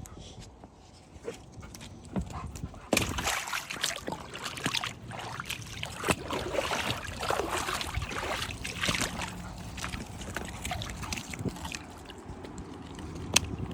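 A dog making sounds amid splashing water, busiest from about three to ten seconds in, with a sharp click near the end.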